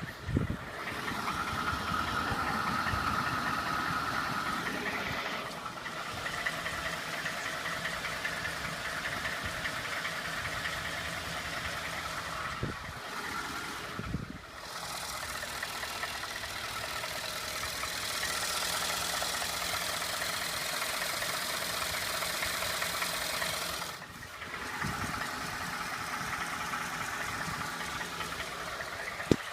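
2012 Ford F-150's 5.0-litre V8 running, with an engine knock. Its level shifts a few times, briefly dropping away twice.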